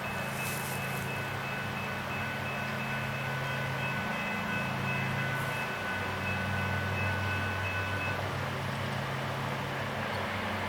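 An engine idling with a steady low hum, with a faint high whine over it that stops near the end.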